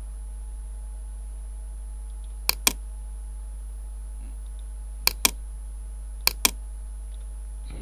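Computer mouse clicking: three pairs of sharp clicks about a second and a half to two and a half seconds apart, over a steady low hum.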